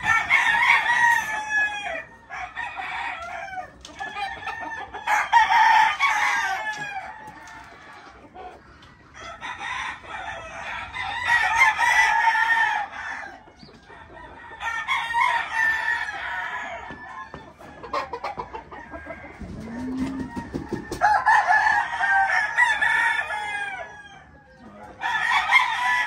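Gamecock roosters crowing again and again, a crow every few seconds, each lasting one to three seconds.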